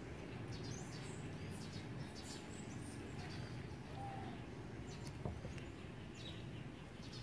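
Faint outdoor background: a steady low rumble with scattered short, high chirps and a single sharp click about five seconds in.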